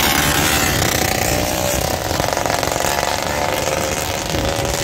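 Vintage racing motorcycle engine running, a steady engine note that wavers slightly in pitch.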